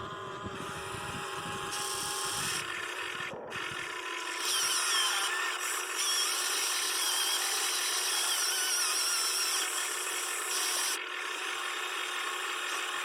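Electric motors and gearboxes of a Huina 580 RC model excavator whining as it works, the pitch wavering and the level stepping up and down as functions start and stop. Rough scraping and knocking are heard in the first few seconds.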